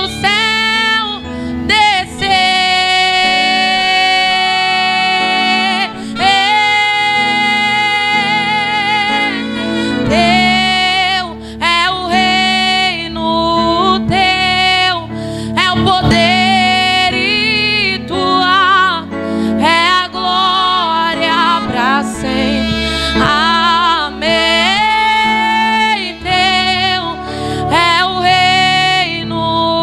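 A woman singing solo into a handheld microphone over instrumental backing music, holding long notes with vibrato between shorter phrases.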